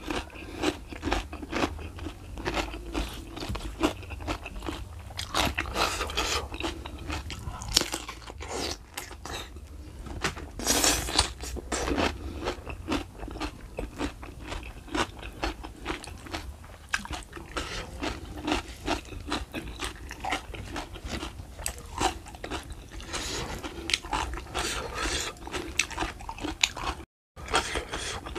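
Close-miked eating sounds: a person chewing raw cucumber and beef foot, with frequent crisp crunches and wet mouth clicks, and one louder crunch about eleven seconds in. The sound drops out for a moment near the end.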